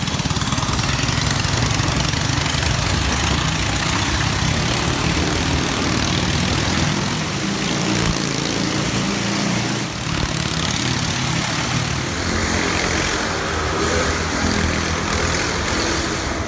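Motorcycle engines running steadily and loudly inside a round wooden Wall of Death drome.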